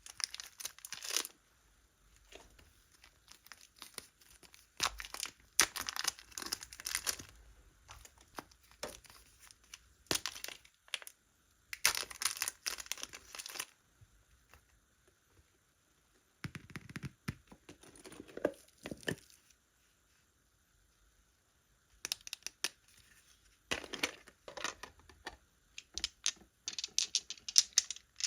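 Slime being squeezed and stretched by hand, giving irregular bursts of crackling, sticky noise separated by short pauses.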